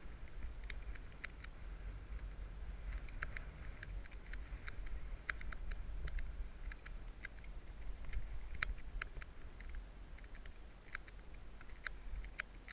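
Mountain bike rolling along a dirt trail: irregular sharp clicks and ticks from the bike and trail over a steady low rumble.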